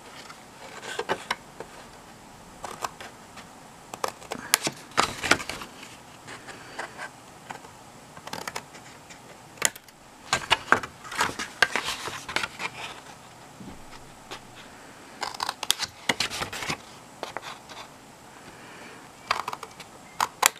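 Small scissors snipping through white cardstock, the snips coming in several short runs with pauses between, as the flaps of a scored card template are cut away.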